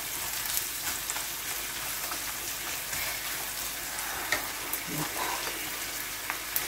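Zazharka, the vegetable base for soup, frying gently in a pan with a steady, even sizzle. A few light knife ticks on a plastic cutting board are heard now and then.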